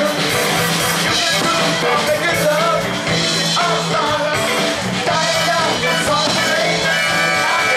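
Live funk band playing a song with a singer, loud and steady, with a repeating bass note under the vocal.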